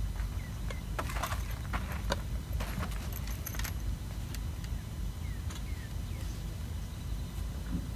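Short metallic clicks and rattles of fishing tackle being handled, bunched in the first half, over a steady low rumble of wind on the microphone.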